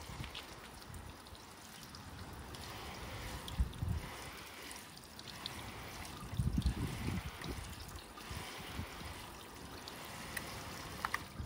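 Garden hose shower nozzle spraying water onto a car's painted front end and the wet pavement: a steady splashing hiss, with a few low rumbles about four and seven seconds in.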